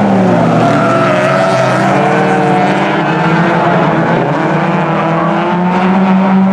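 Several jokkis folk-race car engines running hard at once, their overlapping pitches rising and falling as the cars race around the circuit.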